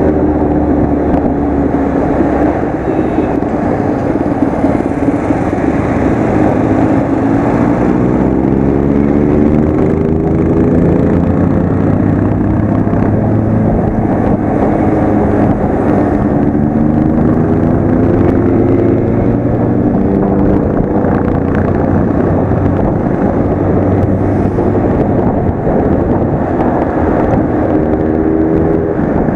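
Motorcycle engine heard from on board the moving bike, its pitch rising and falling several times as the throttle opens and closes, over a steady rush of wind.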